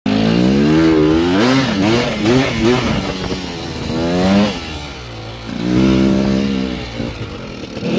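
Honda CR/CRM 250 two-stroke dirt bike engine revving up and down. There are several quick rises and falls in pitch in the first three seconds and one longer climb that peaks about four and a half seconds in. After a brief drop the engine holds a steadier speed.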